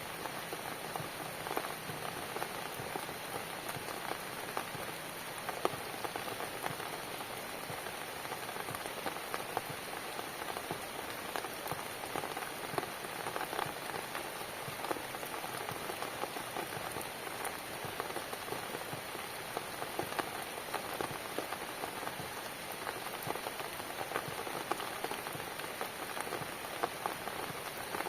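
Steady rainfall, an even hiss dotted with many small, sharp drop taps.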